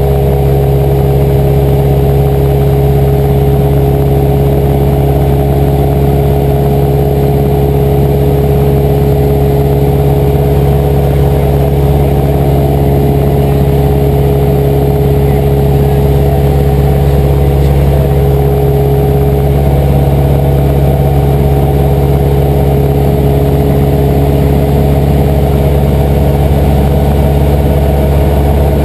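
Cessna 172R's four-cylinder Lycoming engine and propeller running steadily in flight, heard inside the cockpit as a loud, even drone that holds one pitch.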